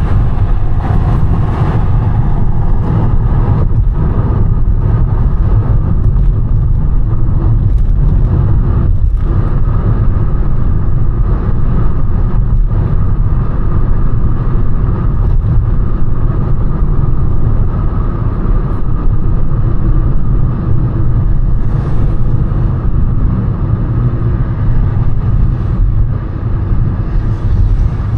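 A car driving, its engine and tyre noise making a steady low rumble with no clear changes.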